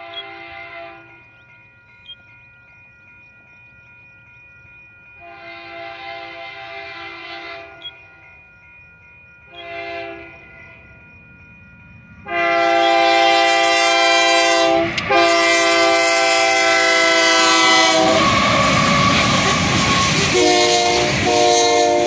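Diesel freight locomotive's multi-note air horn sounding the grade-crossing signal: long, long, short, then a long blast that is much louder as the locomotive reaches the crossing. About 18 seconds in, the rumble and clatter of loaded coal hopper cars rolling past takes over, with two more short horn blasts near the end.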